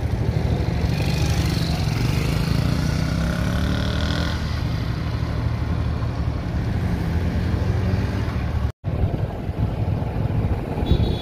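Vehicle engine running with road noise, heard from the moving vehicle. During the first few seconds a higher engine note glides up and down. The sound breaks off for an instant about nine seconds in.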